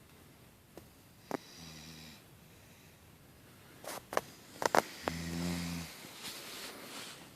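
A woman snoring in her sleep: two low snores about three and a half seconds apart, the first faint, the second louder and followed by a breathy hiss. A few sharp clicks come just before the second snore.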